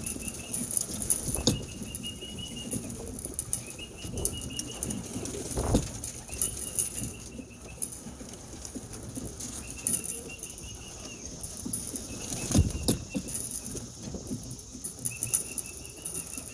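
Homing pigeons at their loft, cooing with wings flapping and a couple of louder thumps as they come in. A short higher call repeats every two to three seconds behind them.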